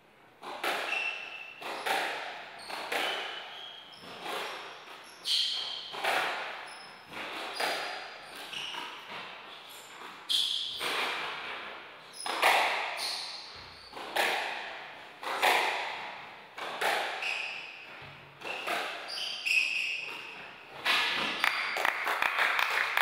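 A squash rally: the ball cracking off rackets and the court walls about once a second, each hit ringing in the hall, with shoes squeaking on the wooden floor between shots. Near the end the rally stops and a burst of clapping follows.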